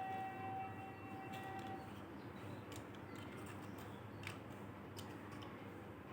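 A steady held tone for about the first two seconds, then faint scattered clicks and taps of plastic toys being handled.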